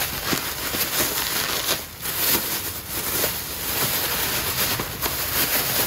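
Bubble wrap and a thin plastic bag being pulled apart and crumpled by hand: continuous crinkling and rustling with small crackles, easing off briefly about two seconds in.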